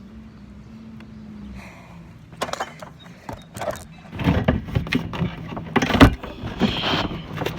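Irregular knocks and rattles of a heavy metal window air conditioner being handled and carried, thickest in the second half, over a steady low hum.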